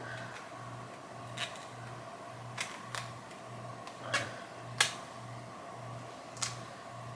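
About six sharp clicks and taps from handling a lipstick and its packaging, the loudest near five seconds in, over a low hum that pulses about twice a second.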